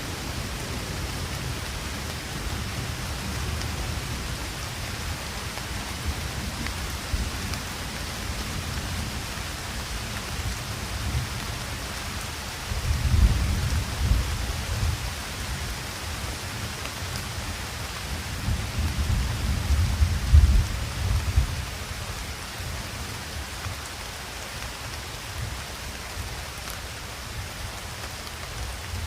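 Steady rain with distant thunder rolling in twice: a low rumble about 13 seconds in and a longer one around 18 to 22 seconds, the loudest parts.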